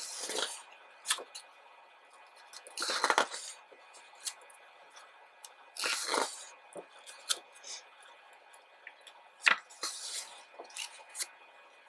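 Large photobook's paper pages turned by hand, four short papery swishes about three seconds apart, with small taps and rustles of the pages between them.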